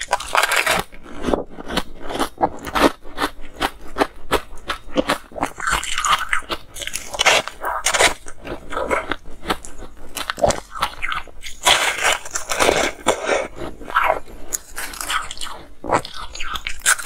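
A person biting and chewing frosty ice: many sharp, irregular crunches, with a few longer grinding stretches of chewing.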